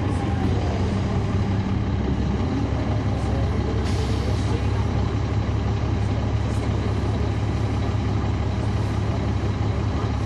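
Caterpillar C13 ACERT diesel engine of a 2009 NABI 40-SFW transit bus, heard from on board, running steadily. A short hiss comes about four seconds in.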